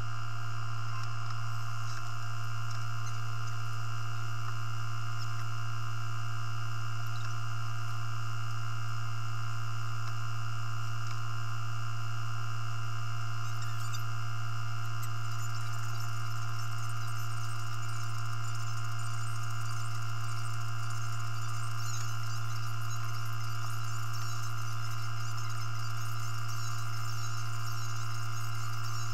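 A steady low hum with fainter high-pitched whines above it, held unchanged throughout.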